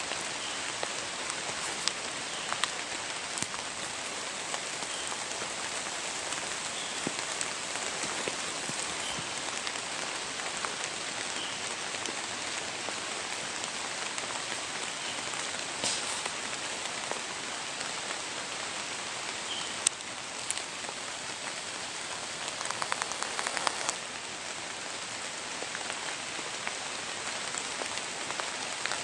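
Steady rain pattering, with scattered single clicks and a brief rattle of rapid ticks about 23 seconds in.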